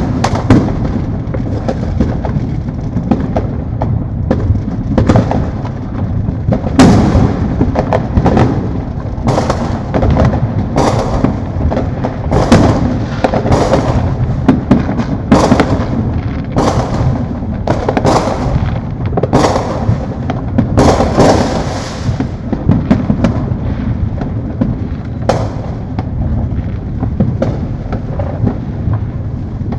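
Fireworks going off all around in a continuous barrage: a steady rolling rumble of distant booms, with many sharp bangs and pops on top, thickest in the middle stretch.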